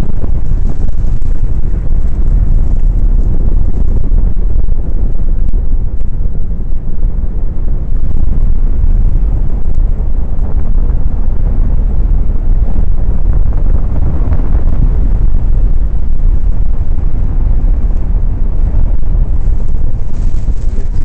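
Airflow from paraglider flight buffeting the camera's microphone: loud, steady wind noise, mostly low-pitched.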